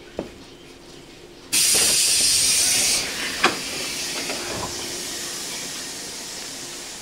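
Compressed air hissing out of a 115 series electric train's pneumatic system: a sudden loud blast that lasts about a second and a half, then drops to a weaker hiss that slowly fades. A faint click comes just before the blast and a sharp click partway through the fading hiss.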